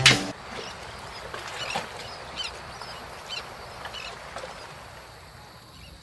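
Quiet outdoor ambience with a few short, high bird chirps about a second apart, after a brief click at the start.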